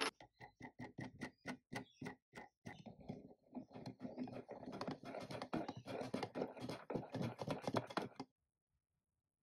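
A restored 1960s hand-crank pencil sharpener being cranked, its mechanism clicking about five times a second. About two and a half seconds in, the clicking turns faster and denser, then stops suddenly.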